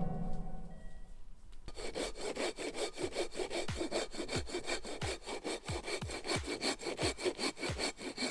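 Coarse-toothed hand pruning saw cutting into a dead log, in quick, even back-and-forth strokes that start about two seconds in.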